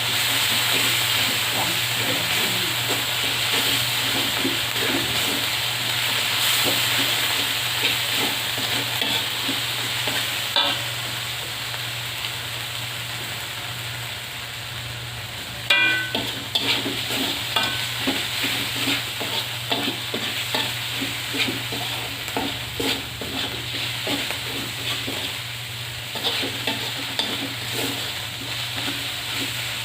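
Food sizzling and frying in a pan while it is stirred: a steady hiss, then from about halfway on a metal spatula scrapes and knocks against the pan, with one sharp ringing clank.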